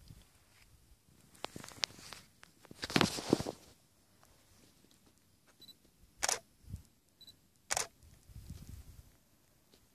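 Handling noise from a phone held against clothing: cloth rubbing and brushing over the microphone, loudest about three seconds in, then two short, sharp scuffs a second and a half apart.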